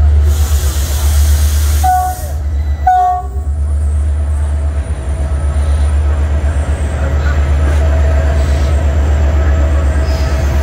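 CFR diesel locomotive arriving at the platform with its engine running as a loud, steady low rumble. It sounds two short horn blasts about two and three seconds in, and a faint wheel squeal comes in later as the train slows.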